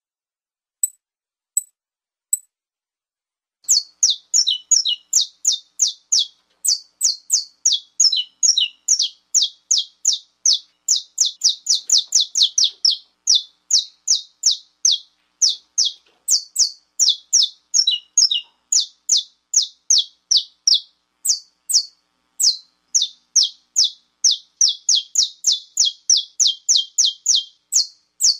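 Saffron finch (canário-da-terra) giving its 'estalo': three faint ticks, then from about four seconds in a fast run of short, sharp, high notes, each sliding downward, about four a second. It is the clipped call that keepers play to fire up male saffron finches.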